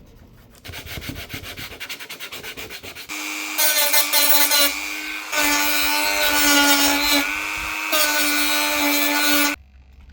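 Quick, rhythmic scraping strokes, then a small electric power tool sanding the bumper plastic with a steady whine for about six seconds before it stops abruptly.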